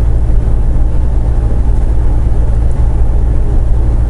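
Steady low drone of a semi truck's diesel engine and road noise, heard from inside the cab while cruising on the highway.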